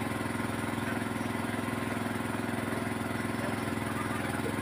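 An engine running steadily at a constant speed, with a fast, even pulse.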